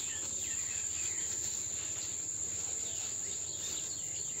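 Insects shrilling in one steady high pitch, with scattered bird chirps over it.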